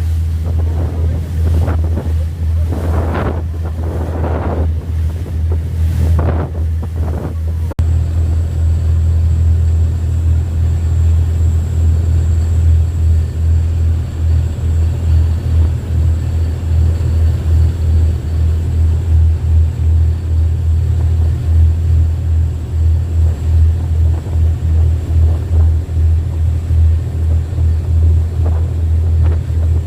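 Wind buffeting the microphone as a loud, steady low rumble that pulses with the gusts, with waves washing in several times during the first eight seconds. After a cut at about eight seconds the rumble continues, with a faint steady high whine.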